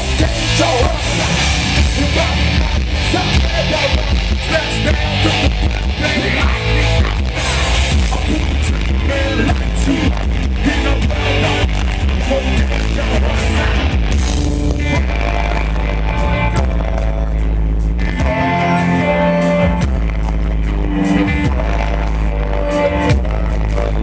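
Live rock band playing loud through an outdoor PA: distorted electric guitar, bass guitar and drums, with a singer's vocals. About halfway through, the dense crashing of the drums thins out, and held guitar and bass notes come forward over a regular ticking beat.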